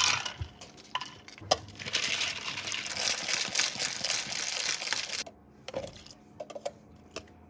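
A few clacks of a plastic drink cup on a counter scale, then ice and drink rattling in a plastic shaker cup shaken hard for about three seconds, stopping abruptly. Near the end come a few light clicks as jelly is spooned into a plastic cup.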